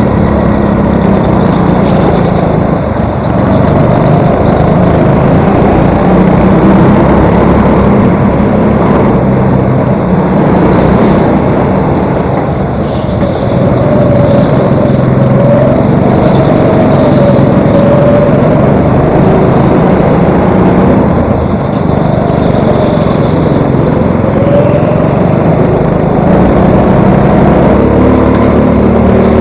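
Go-kart engine running hard, heard close up from the kart's own onboard camera, its pitch rising and falling again and again as the driver gets on and off the throttle through the corners.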